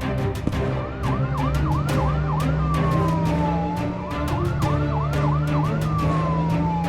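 Police siren sound effect that starts about a second in, alternating fast yelping sweeps with slow falling and rising wails. Background music with a steady beat plays under it.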